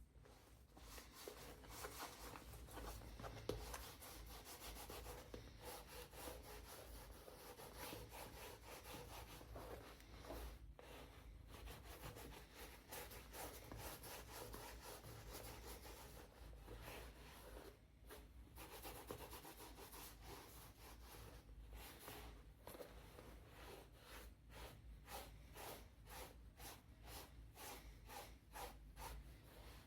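Faint, repeated hand-rubbing strokes on a leather bag. The strokes settle into a steady back-and-forth of about three a second near the end.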